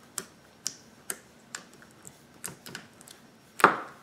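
Fingertip poking into a detergent-activated slime in a plastic container: short sharp clicky pops about twice a second. A louder, longer squelch comes near the end as the slime is squeezed by hand.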